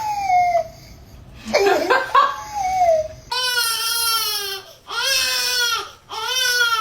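A pet crying: two short falling whines, then three long, arching wails of about a second each, one after another.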